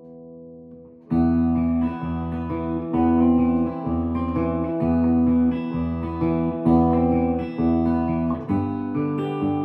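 1960s Höfner Verithin thinline hollow-body guitar being played: a chord rings out and fades, then from about a second in it plays chords over a low bass note that is restruck roughly once a second.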